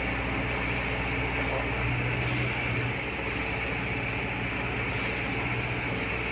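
Steady mechanical hum of running machinery, with a low drone that eases off about three seconds in.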